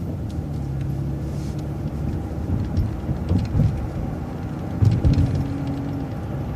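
City transit bus running steadily along the road, its engine and drivetrain giving a low hum, with a few low thumps, the loudest about five seconds in.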